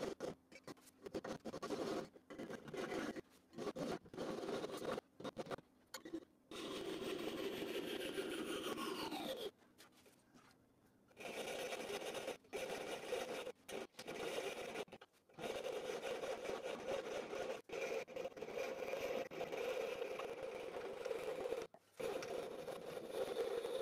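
Fine fret-saw blade cutting a thin aluminium strip by hand: quick rasping strokes with short breaks, and a longer pause about ten seconds in.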